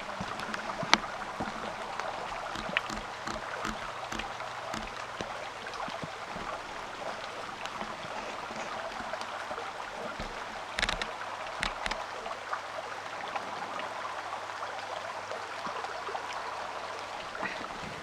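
Steady rain falling, a continuous hiss full of small drip ticks, with a few louder sharp taps about a second in and again around eleven seconds.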